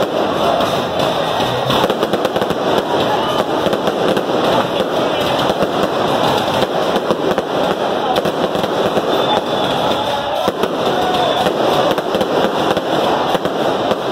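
Aerial fireworks going off without pause: a loud, dense crackle of many small bursts in quick succession.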